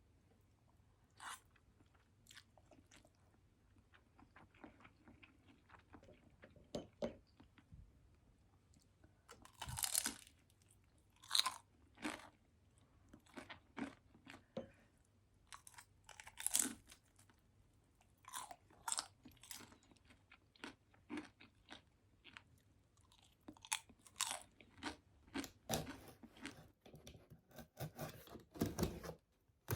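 A person chewing and crunching food in irregular crisp crunches, with short quiet gaps between them.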